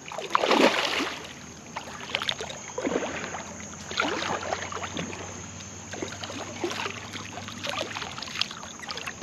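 A hooked fish splashing at the water's surface in the shallows as it is played in close to the bank, a series of irregular splashes.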